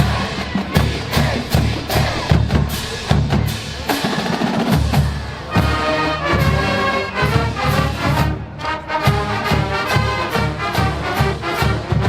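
College marching band playing: the drumline beats out a rhythm on snare and bass drums, and the wind section comes in with sustained pitched chords about halfway through.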